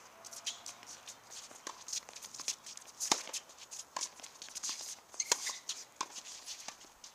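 Tennis point on an outdoor hard court: sharp knocks of racket strikes and ball bounces, the loudest about three seconds in and again past five seconds, with shoe scuffs between.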